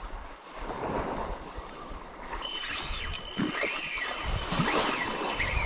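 Wind on the microphone and light surf at the shoreline. About halfway through, a steady high-pitched hiss joins in, with a few short rising-and-falling chirps.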